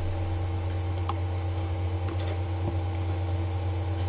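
A steady low hum, with a few faint, scattered clicks of a computer keyboard and mouse.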